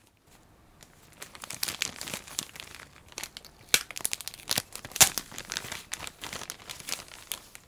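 Clear plastic bag crinkling and crackling in irregular bursts as hands handle and open it, starting faintly and growing busier about a second in.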